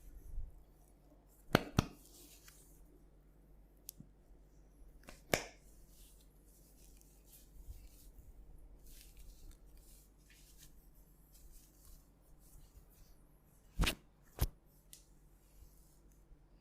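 Head massage: hands rubbing over skin and hair, broken by several sharp snaps, two of them coming as quick pairs.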